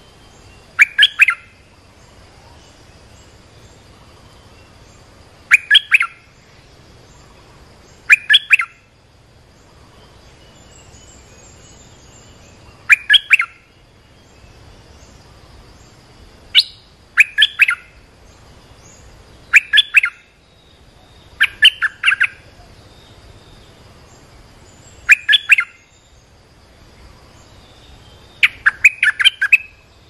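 A bulbul calling in short bursts of three or four quick notes, about ten bursts a few seconds apart. These are decoy calls used to lure wild bulbuls to a trap cage. A faint steady high tone runs underneath.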